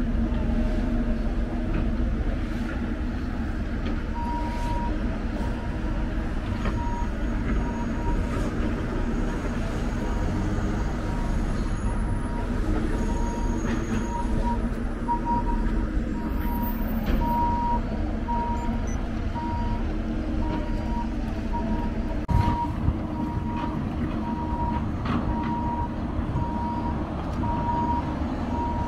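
Steady rumble of city traffic, with an electronic beeper starting about four seconds in and sounding a single short tone a little faster than once a second.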